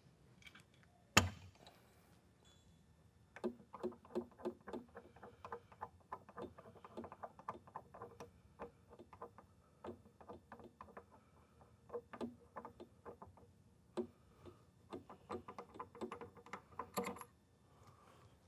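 Spanner wrenches working the seamer's chuck tooling off its reverse-threaded shaft. There is one sharp metallic crack about a second in, then a long run of quick, light metal clicks and clinks, several a second, with short pauses.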